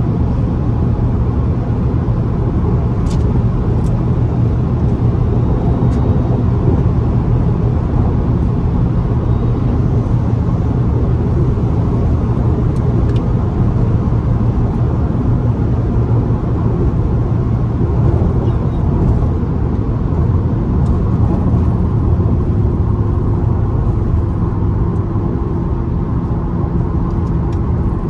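Fiat Bravo T-Jet cruising at a steady speed: a constant low engine drone with road noise, and no siren.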